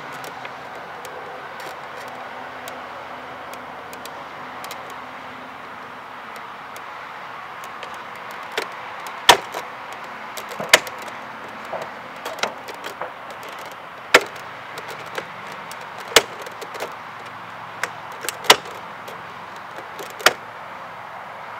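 Square PVC balusters snap-locking into the routed holes of a PVC top rail: a series of sharp clicks, one every second or two from about eight seconds in, over steady background noise.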